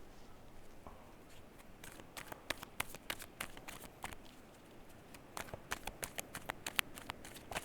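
A deck of oracle cards being shuffled by hand: two bursts of quick, irregular card clicks and flicks, the first about two seconds in and the second about five seconds in.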